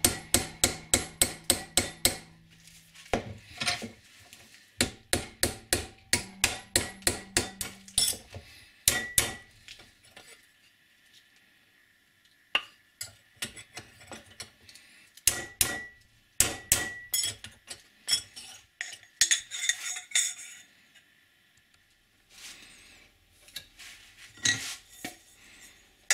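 Hammer striking a thin steel strip against an aluminium tube clamped in a vise, bending the strip to the mast's curve: runs of quick ringing metal blows, about five a second, with short pauses between. Later come scattered knocks and clinks.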